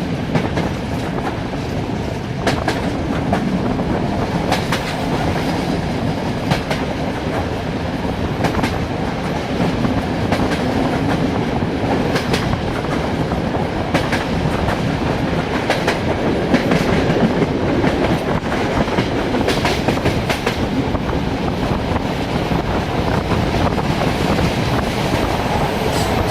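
Passenger train's wheels rolling along the track with a steady rumble, clacking over rail joints about every two seconds.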